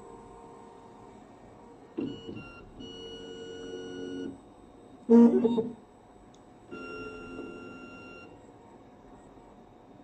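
Graphite furnace atomic absorption autosampler at work: motor whines of about a second and a half each as its arm moves, twice, with a click before the first. In between, a little after five seconds, comes a short, louder buzz, the loudest sound here.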